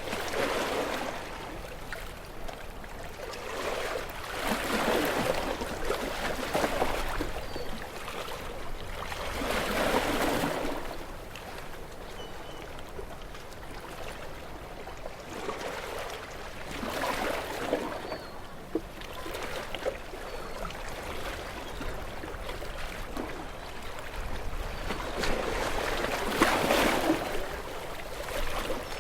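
Sea waves breaking and washing over rocks: a rushing wash that swells and recedes every few seconds, one surge after another, the loudest near the end, over a steady low rumble of surf.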